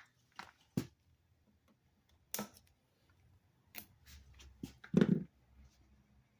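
Wire cutters snipping nylon zip ties: a scattered handful of short, sharp clicks, the loudest about five seconds in.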